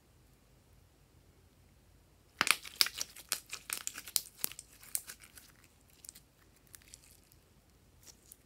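Pink glitter slime being squeezed and kneaded between the hands, giving a dense run of quick clicks and pops from about two and a half seconds in that thins to scattered clicks after about five seconds.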